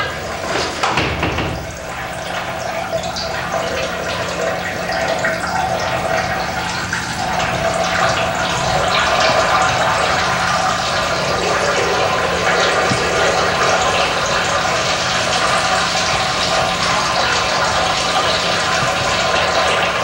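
Liquid splashing steadily into porcelain urinals, men urinating, growing a little louder about eight seconds in, over a faint steady low hum.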